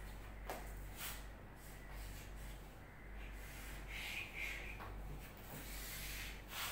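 Chalk on a chalkboard: faint scratching as lines are drawn and letters written, with a few light taps of the chalk against the board.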